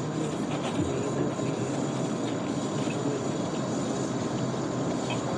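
Hospital corridor ambience: a steady background drone of building noise with a few faint clicks and knocks, the first within about a second and one near the end.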